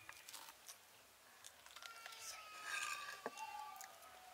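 A knife blade scraping and cutting kernels off a cooked corn cob onto a clay plate: soft scraping clicks. About halfway through comes a faint, drawn-out call, sliding slightly down in pitch.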